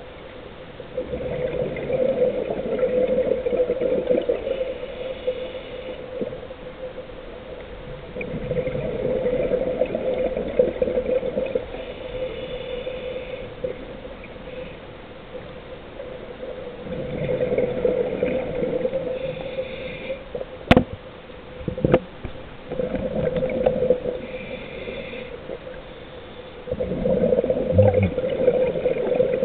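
Scuba diver breathing through a regulator underwater: rumbling bubble bursts alternate with a thinner hiss, in a slow cycle that repeats every six to eight seconds. Two sharp knocks about a second apart come a little past two-thirds of the way through.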